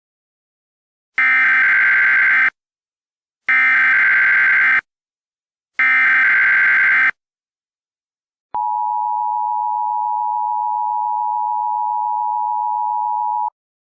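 Emergency Alert System tones: three short bursts of warbling data tones (the SAME header), each a little over a second long. A steady two-tone attention signal follows and is held for about five seconds before cutting off.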